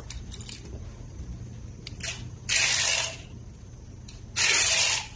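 Two short rasping, ratchet-like bursts, each about half a second long and nearly two seconds apart, with a few light clicks before them, from wiring connectors being handled.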